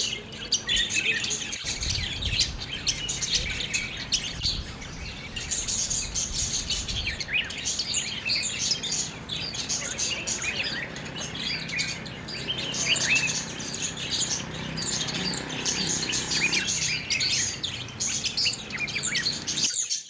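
A flock of budgerigars chirping without pause, many short high calls overlapping.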